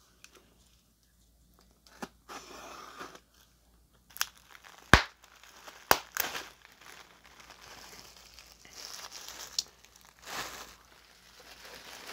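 Packaging being handled and opened by hand: short bouts of crinkling and rustling with several sharp clicks, the loudest two about five and six seconds in.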